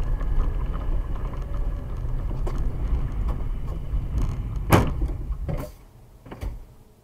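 A car's low road and engine rumble heard from inside the cabin on a slushy road. About five seconds in comes a single loud bang as it collides with an oncoming car, followed by a couple of smaller knocks as the running noise dies down.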